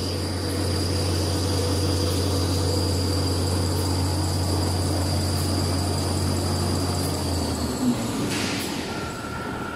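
Toilet tissue and paper towel converting machine with embossing unit running: a steady low drone with a high whine over it. About three-quarters of the way through the drone and whine stop, and a different steady tone comes in near the end.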